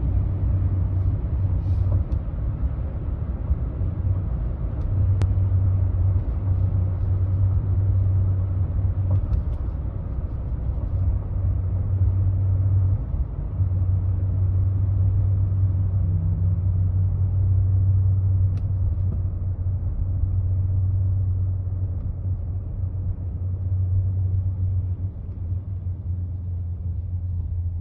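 Low rubbing drone from the front left wheel of a 2016 Ford F-150 on the move, with a road rumble underneath. The drone holds steady with a few brief dips. The noise shows up at 45 mph or under, and its cause is unknown.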